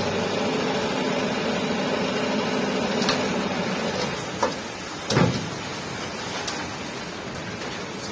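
Canter dump truck's engine running while the hydraulic hoist holds the bed up to tip a load of soil: a steady hum that eases off about halfway through. A few sharp knocks, the loudest just past halfway.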